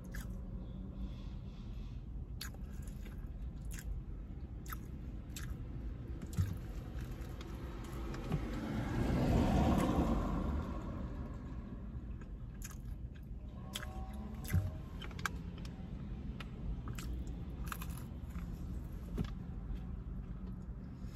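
Close-up chewing of crunchy fried fish, with short mouth clicks and smacks scattered throughout over a steady low hum. About halfway through, a passing vehicle swells and fades.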